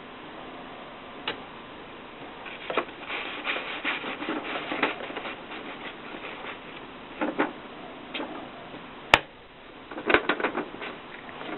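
Irregular rubbing and scraping noises with scattered clicks, one sharp click about nine seconds in.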